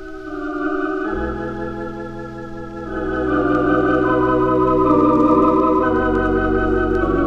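Organ music: slow, sustained chords with a slight wavering tremolo, moving to a new chord about a second in and again near three seconds, with the bass note shifting near the end.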